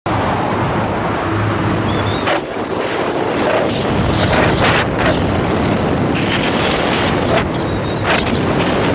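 Speedboat running fast: a steady engine drone mixed with rushing water, and wind gusting on the microphone now and then.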